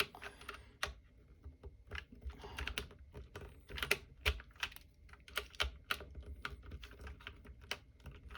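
Mechanical keyboard with Cherry MX Brown switches clacking under hand: an irregular string of sharp plastic clicks and clacks, some single, some in quick clusters.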